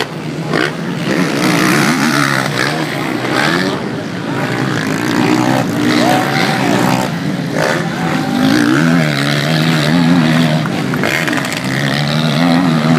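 Motocross race bikes revving hard as they pass on the track, the engine pitch climbing and dropping again and again as the riders accelerate and shift.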